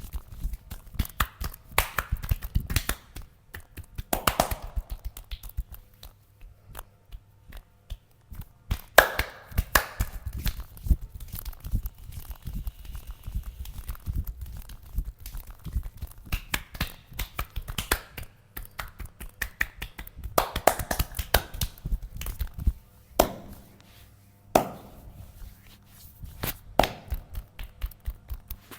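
Hands working on a person's body during an oil massage: many quick, sharp slaps, taps and finger clicks on skin, coming in irregular runs, broken by a few short bursts of rubbing.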